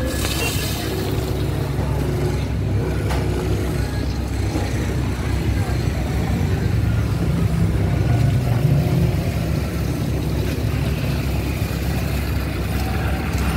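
Water from a hose running into the plastic tank of a Bamboo B 2in1 knapsack sprayer as it is filled, over a steady low rumble.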